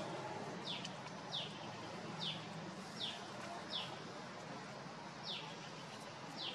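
A bird calling over and over: about seven short, high chirps that each fall in pitch, roughly one every second, with a pause of a second and a half in the middle, over a steady background hiss.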